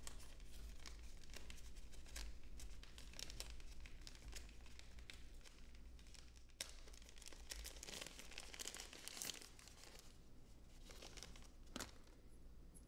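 Faint crinkling and crackling of a thin plastic wrapper as a small camera mount is unwrapped by hand, with a couple of sharper ticks.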